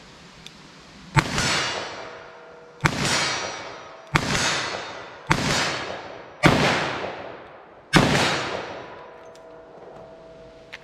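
.357 Magnum revolver, a 4-inch Smith & Wesson 686, firing six shots at a steady pace about one to one and a half seconds apart. Each shot has a long echoing tail.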